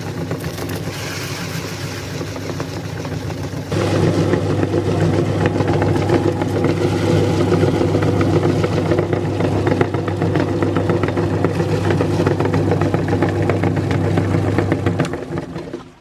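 Electric meat grinder running with a steady motor hum and dense crackling as it grinds crunchy Kurkure corn snacks. It gets louder about four seconds in, and the motor stops near the end.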